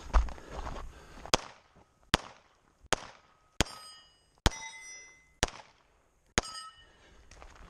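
Seven pistol shots fired at a steady pace, a little under a second apart. Several are followed by the brief metallic ring of a steel plate target being hit.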